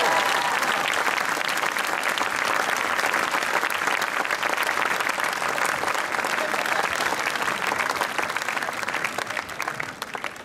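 Large outdoor audience applauding a brass band, the band's last held brass chord cutting off just after the start; the clapping thins out near the end.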